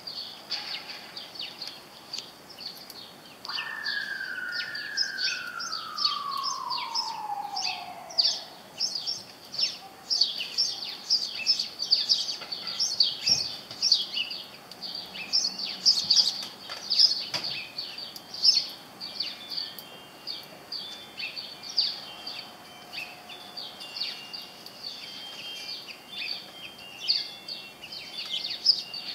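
Small songbirds chirping rapidly and continuously, many short high tweets overlapping. A few seconds in, a single long falling tone glides steadily down for about four seconds.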